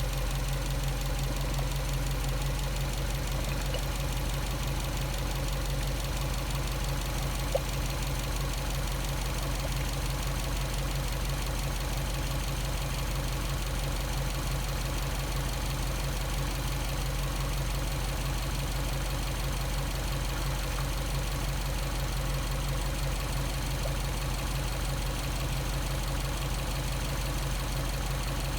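Subaru EJ207 turbocharged 2.0-litre flat-four engine idling steadily while warming up. A single short click about seven and a half seconds in.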